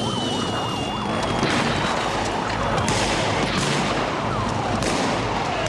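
Police sirens yelping and wailing over dense street noise, with a few sharp shots in the second half.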